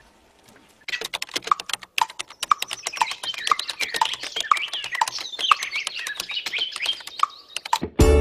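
Rapid computer-keyboard typing, a dense run of key clicks starting about a second in, with a regular tick about twice a second and bird chirps over it. Music begins just at the end.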